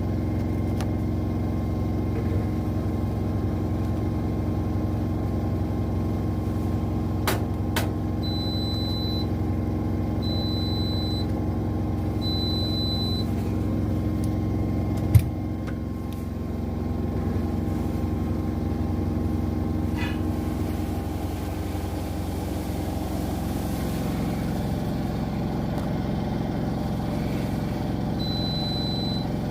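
Two front-loading washing machines, an LG with the Centum system and a Zanussi, spinning side by side: a steady motor and drum hum. Two clicks are followed by three short high beeps. About halfway a sharp thump comes, after which the hum drops and changes as one machine shifts speed, and two more beeps sound near the end.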